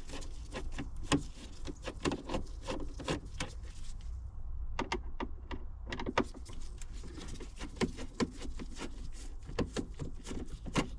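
Irregular small clicks and light knocks of hand tools working screws and plastic dashboard trim around a car's head unit, over a steady low hum.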